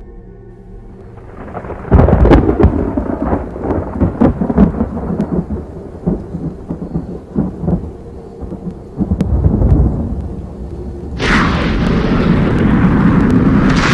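Thunderstorm sound effect: a sudden loud thunderclap about two seconds in, then thunder cracking and rumbling. Near the end a steady dense hiss like heavy rain sets in.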